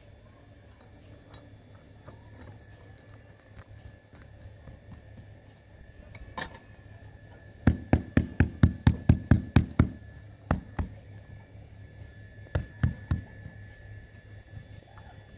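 A fast, even run of about a dozen sharp knocks, roughly five a second, starting about eight seconds in, followed by a few scattered single knocks.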